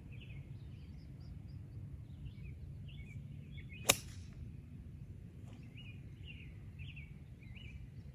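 A golf club striking a ball from the rough once, a single sharp click about four seconds in. Birds chirp throughout.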